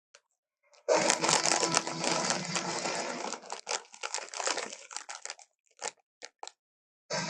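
A harsh, raspy dinosaur roar sound effect made of noise with no clear pitch. It starts suddenly about a second in, holds for two seconds, then breaks into shorter rasping pulses that stop well before the end.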